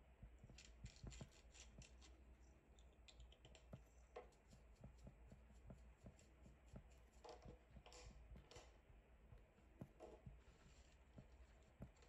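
Faint, irregular clicks and taps in quick clusters, over a low steady hum.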